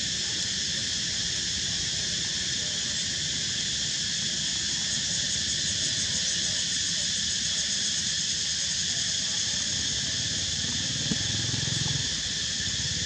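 Steady chorus of insects buzzing at a constant high pitch, with a low rumble underneath.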